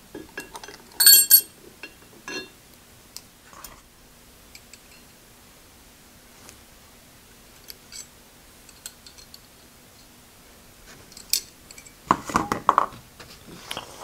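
Small steel parts of a milling machine's downfeed assembly clinking and tapping as they are handled and fitted into the housing: a sharp ringing metal clink about a second in, scattered light clicks, and a louder burst of knocks and rattles near the end.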